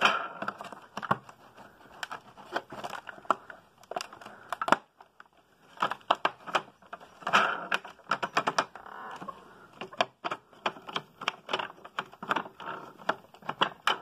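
Irregular clicks, taps and knocks of plastic as hands work at the upturned base and brushroll of a Hoover WidePath bagless upright vacuum, checking a part that sticks.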